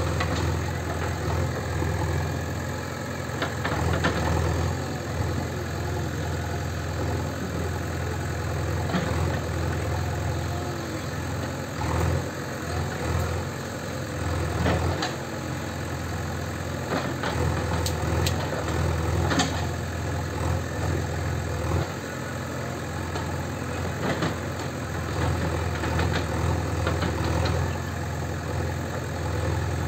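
JCB 3DX backhoe loader's diesel engine running steadily as the backhoe digs, with scattered sharp knocks from the bucket and clay-brick rubble.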